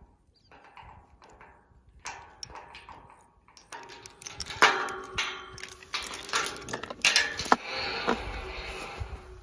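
Steel chain and padlocks clinking and rattling against a tubular metal farm gate as the chain is taken off, sparse at first and then busy with sharp metallic clinks from about halfway through.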